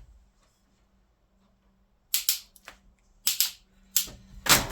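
Mountain bike shifter clicking through gears during a test of a newly fitted shifter cable: about four sharp clicks, some doubled, starting about two seconds in, the last the loudest.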